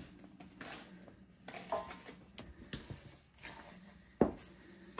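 Thick batter being stirred by hand with a wooden-handled dough hook in a plastic mixing bowl: soft, irregular squishing strokes, with one sharper knock about four seconds in.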